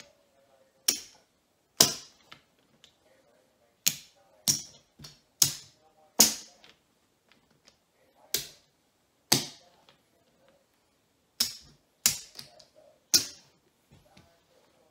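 Poker chips clacking together as they are stacked into piles by hand: about a dozen sharp clicks at uneven intervals.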